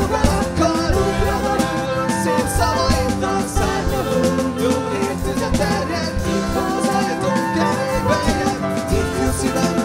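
Live band playing an instrumental passage: drums on a Premier kit, with electric and acoustic guitars, bass and flute.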